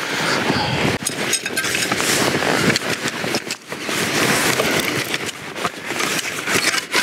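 A collapsible avalanche probe being pulled out and assembled, its metal sections rattling and clicking together as they are drawn up on the cord, over a steady rushing noise.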